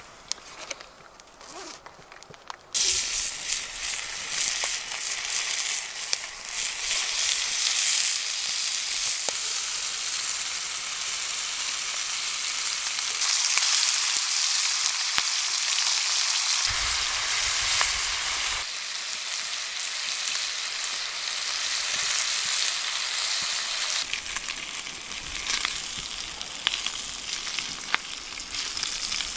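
Bacon rashers sizzling in a hot frying pan over a wood fire, a steady loud hiss that starts suddenly about three seconds in as the bacon goes into the pan.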